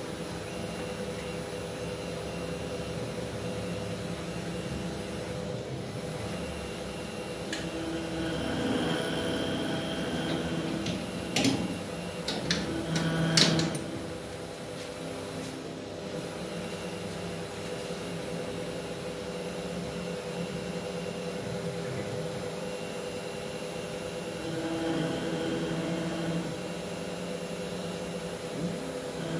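Mini five-axis CNC machine's spindle cutter working a wooden blank in a test cut, over a steady hum with several whining tones from the spindle and stepper motors. The sound swells louder twice, about a third of the way in and again near the end, with a short run of sharp clicks near the middle.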